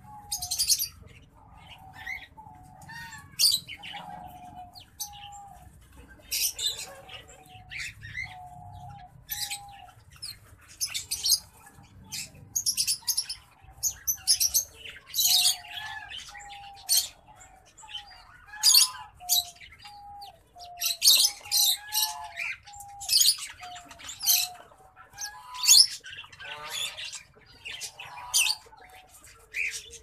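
Caged green singing finch and black-throated canary calling and singing: many quick, high-pitched chirps and song phrases in short bursts. Underneath runs a steady series of short, lower whistled notes, about one a second.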